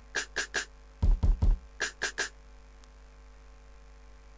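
Drum-machine snare sample triggered repeatedly from a software keyboard, short sharp hits in quick groups of three. About a second in comes a group of four heavier hits with more bass.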